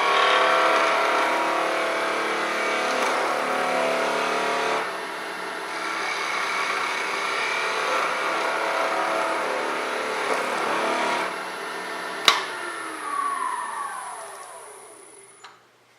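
Wood lathe running with a small oak spindle, a turning tool cutting a bead into the spinning wood, the cut pausing briefly twice. About 12 seconds in a sharp click, then the lathe winds down, its pitch falling until it stops.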